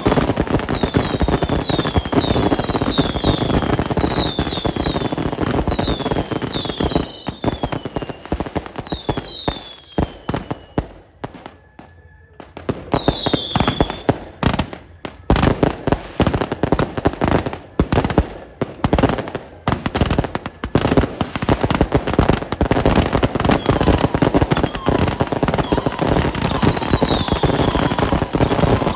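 Fireworks and firecrackers crackling in a dense barrage, with short falling whistles repeating over the first several seconds. The barrage thins out and almost stops about twelve seconds in, then builds back to a dense crackle.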